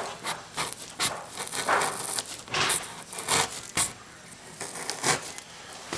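Utility knife sawing through corrugated cardboard in short, uneven scraping strokes, cutting out a small hole.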